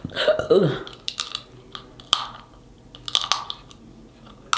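Snow crab shell being cracked and the meat eaten close to the microphone: a handful of sharp shell snaps and crunches amid chewing.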